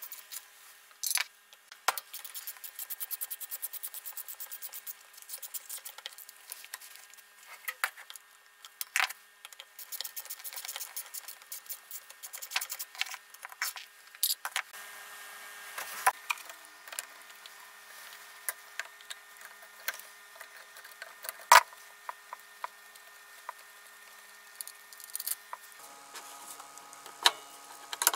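Hand-tool work on an old Makita 1800 electric planer's aluminium housing: a run of rapid fine ticks as a screw is turned out with a screwdriver bit, then scattered small metal clicks and scrapes, with one sharp knock about twenty seconds in. A faint steady hum lies underneath.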